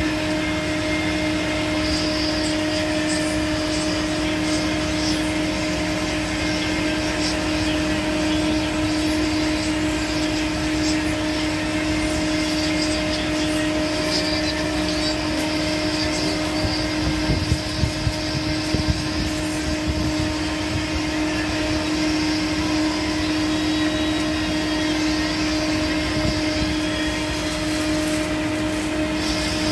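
Steady machine hum with a constant low tone, like a motor or engine running without pause. A few short knocks come about eighteen seconds in.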